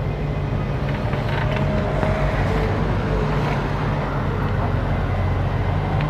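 Volvo wheeled excavator's diesel engine running steadily under load as it digs and lifts a bucket of soil.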